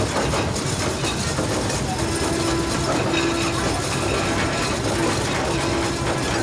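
Miniature 15-inch-gauge passenger train heard from aboard an open car as it rolls along: a steady rumble of wheels on track, with a steady hum that comes and goes from about two seconds in.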